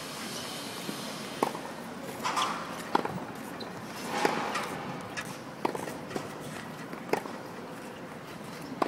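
Tennis ball struck by rackets in a groundstroke rally on a hard court: sharp hits about every one and a half seconds, with footsteps between them.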